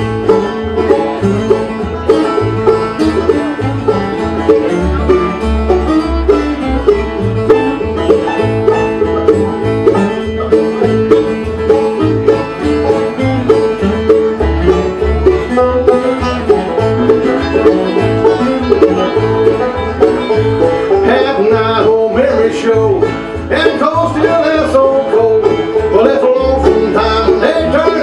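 Bluegrass band playing an instrumental break with no singing: banjo, acoustic guitars and mandolin picking over a steady beat of low bass notes.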